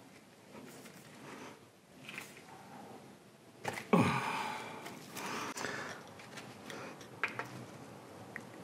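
Hand tools prying and scraping at a Monarch lathe's grease-caked clutch bearing housing: scattered metal clicks and scrapes. About four seconds in comes one loud sudden sound that falls in pitch and trails off over a second or so.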